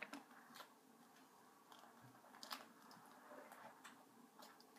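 Near silence, with faint scattered clicks and short rustles of hands handling small craft items.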